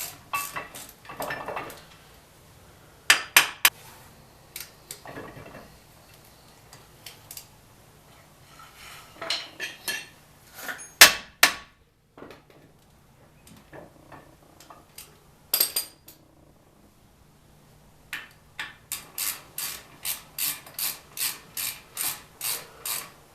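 Hand ratchet clicking in bursts as bolts are run back in on the brake caliper, ending in a steady run of about two to three ratchet strokes a second. A few louder metal clanks of tools come in between.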